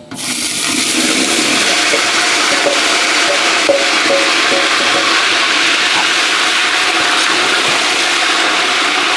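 Marinated chicken in a yogurt-masala marinade hitting hot refined oil in a large pot: loud, steady sizzling that starts as the chicken goes in and keeps on.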